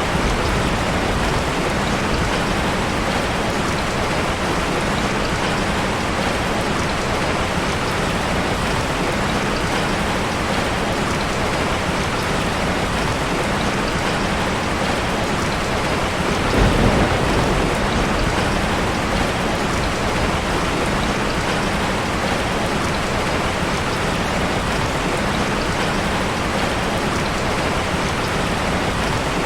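Steady rain falling, an even hiss of drops with no break, and a brief low rumble a little past halfway through.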